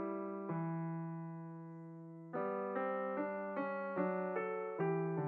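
Background piano music: a held chord slowly fades, then a run of new notes begins about two seconds in.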